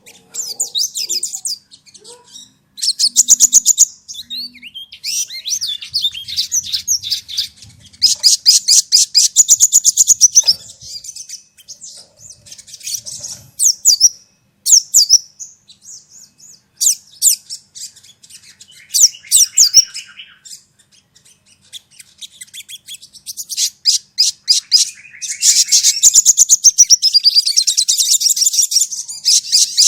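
Sogon birds calling: loud, rapid strings of high chirping notes in bursts of one to three seconds with short pauses between, and a longer run near the end with a note sliding downward. A lure recording used to get a kept sogon bird to answer and mimic other sogons.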